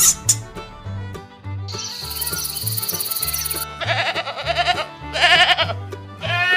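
Background music with a repeating bass line, over which an insect trill like a cricket's sounds for about two seconds, followed by two quavering bleats and a short rising call near the end.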